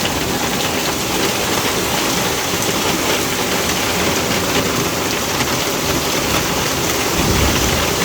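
Heavy rain and hailstones pelting down in a hot-season storm: a dense, steady hiss flecked with many small hits. A low rumble rises about seven seconds in.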